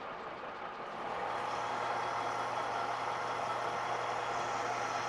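LG-2080DS gear-head metal lathe running at a slow spindle speed with the power feed at 20 thousandths per revolution, the tool taking a cut. The sound gets louder about a second in and then stays steady, with a low hum under it.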